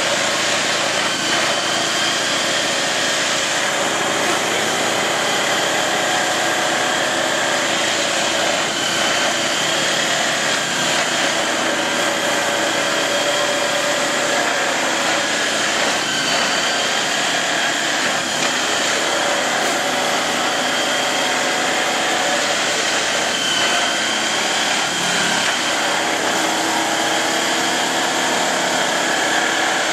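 Multiple tie tamper (railway track-tamping machine) running continuously, its engine, hydraulics and vibrating tamping tines working in the ballast. There is a steady high whine over the machine noise.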